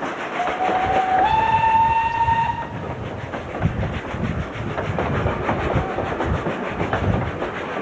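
Steam whistle of the 4-6-2 tank locomotive F251 sounding one blast of about two seconds, its pitch stepping up partway through. After it come the clatter and knocking of the carriage wheels passing close over the rails.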